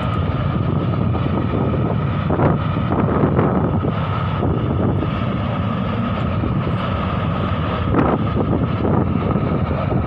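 Steady rushing noise with a faint high whine from a geothermal drilling well venting a thick plume of steam and gas, the sign of a gas leak at the well. A few brief bumps of wind or handling on the microphone.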